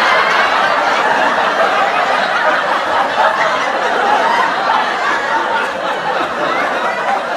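Sitcom laugh track: a studio audience of many people laughing and chuckling together, a dense, continuous crowd laugh.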